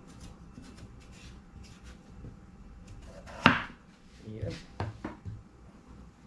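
Knife cutting unripe papaya on a chopping board: faint light clicks, then one sharp chop about halfway through, followed by a few softer knocks.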